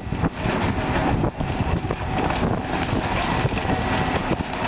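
Excavator demolishing a wooden building: its engine runs under a continuous crunching and clattering of breaking debris, with wind buffeting the microphone.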